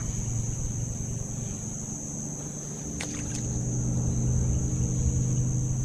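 A boat motor's steady low hum, getting louder about halfway through, under a steady high-pitched drone of insects. A couple of light clicks about three seconds in.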